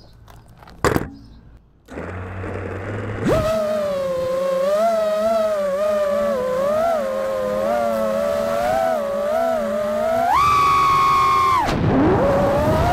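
FPV quadcopter's brushless motors spinning up about three seconds in and whining, the pitch wavering as the throttle moves, then rising sharply for a burst of throttle near the end before dropping and climbing again. A single sharp click comes about a second in, before the motors start.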